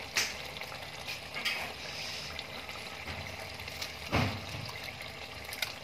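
Black-eyed bean curry simmering in a pan, a steady bubbling hiss of the gravy, with a soft thump about four seconds in.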